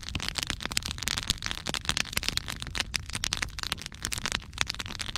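Wood campfire crackling, with frequent irregular sharp snaps and pops.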